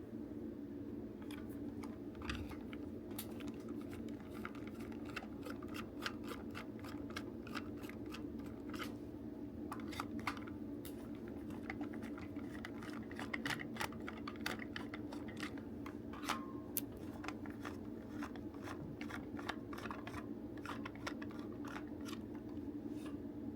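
Irregular small clicks, taps and light scrapes from plastic toy parts and tools being handled while a DX Buggle Driver Zwei toy belt is taken apart, denser around the middle, over a steady background hum.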